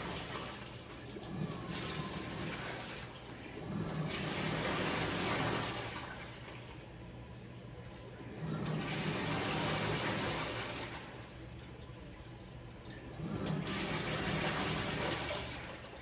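Panasonic NA-FD85X1 top-load inverter washing machine in its wash cycle, with water and clothes sloshing in the tub. The sloshing swells three times, about every four and a half seconds, as the agitation churns the load, over a steady low hum.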